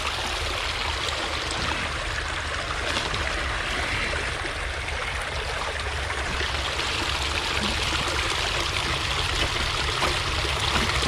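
Steady rush of running water from a rain-swollen creek at a dam.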